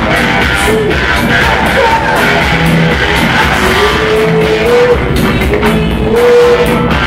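Live rock band playing: a woman singing long, held notes into a microphone over electric guitar and bass guitar.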